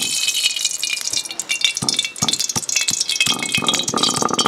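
Cooking oil pouring in a thin stream from a plastic bottle into an empty aluminium karahi, with small clinks against the metal pan.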